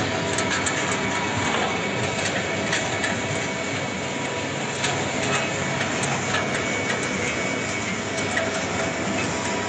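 Wood pellet mill running steadily: an even, dense mechanical noise with faint steady tones and scattered clicks.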